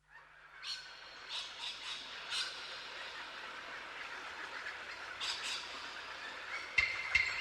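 Bird squawks over a faint steady hiss of natural ambience: several short calls in the first few seconds and two more about five seconds in. Near the end a didgeridoo piece begins with a clicking, wood-block-like beat, about three strikes a second.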